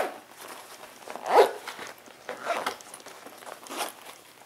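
A zipper on a JuJuBe BFF diaper bag's inner pocket being pulled in a few short strokes, the loudest about a second and a half in.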